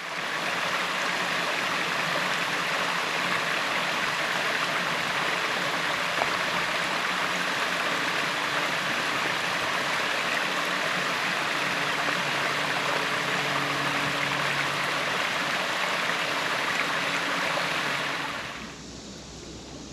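Water rushing steadily over a small waterfall about two feet high. It cuts off suddenly near the end.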